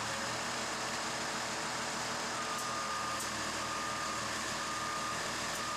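School bus engine idling, and about two seconds in its reverse backup alarm starts beeping, a single-pitch beep repeating about once a second as the bus is put in reverse to move a short distance.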